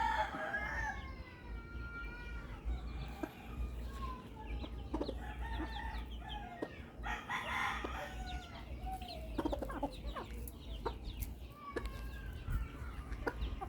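Chickens: a rooster crowing twice, at the start and about halfway through, amid clucking from other fowl, over a steady low rumble.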